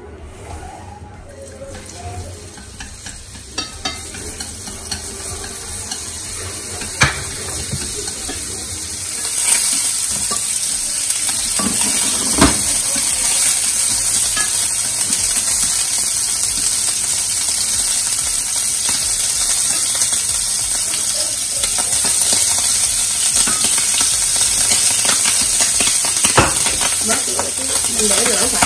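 Pork pieces and then shrimp stir-frying in hot oil in a nonstick frying pan. The pan is quiet at first apart from a few sharp taps of a utensil. About nine seconds in, a steady loud sizzle starts and carries on as the food is stirred with chopsticks, with an occasional click of the chopsticks on the pan.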